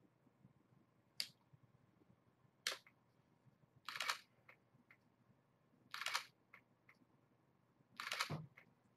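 Camera shutter firing five times, about every one and a half to two seconds, the last three clicks longer than the first two.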